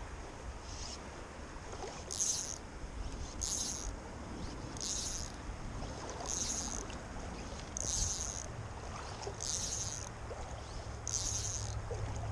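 Fly line being stripped in by hand, hissing through the rod guides in short, regular pulls about every one and a half seconds, over the steady rush of a shallow river.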